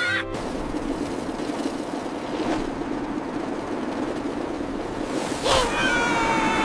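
Steady rushing noise of snowboards sliding fast over snow. About five and a half seconds in, a high tone starts, drops in pitch and then holds.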